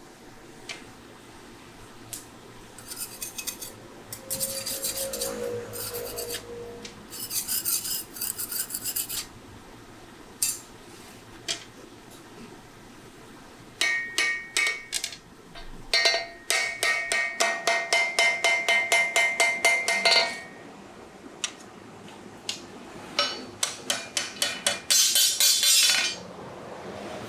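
Hand hammer striking a long red-hot steel blade on an anvil in several quick runs of blows, several a second, with the steel and anvil ringing between strikes.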